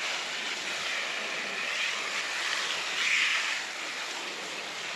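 Water from a garden hose splashing into a blue plastic drum as it is rinsed out, a steady hissing splash that swells a little about three seconds in.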